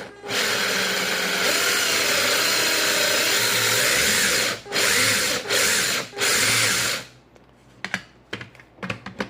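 A handheld power tool running in one long stretch of about four seconds, then in three short bursts, followed by a few light clicks near the end.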